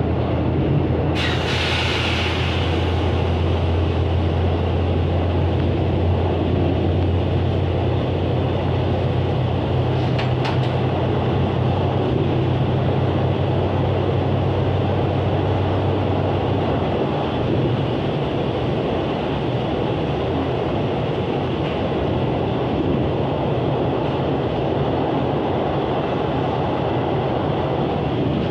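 Diesel regional train running, heard from inside the carriage: a steady low engine drone over rolling wheel and track noise, with a short hiss about a second in. The engine drone fades away after about two-thirds of the way through while the rolling noise continues.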